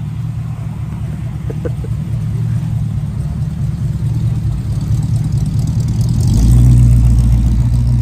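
Vintage Chevrolet pickup truck's engine running as the truck pulls away at low speed, with a steady low note that gets louder and deeper about six seconds in.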